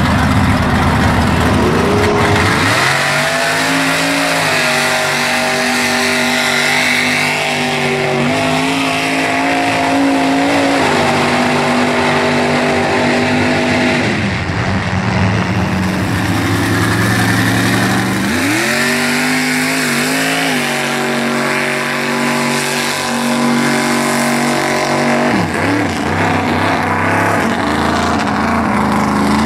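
Lifted mud-bog Ford Bronco's engine revving hard and held at high revs while it drives through deep mud. It eases off about halfway through, revs up again, and drops back once more near the end.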